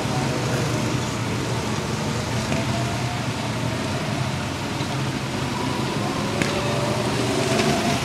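Several go-kart engines running around the track, a steady drone with pitches that rise and fall as the karts speed up and slow down.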